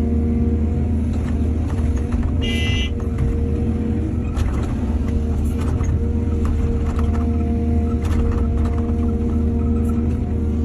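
Excavator's diesel engine running steadily under load, with scattered knocks and clanks from the machine at work. A brief high-pitched squeal sounds about two and a half seconds in.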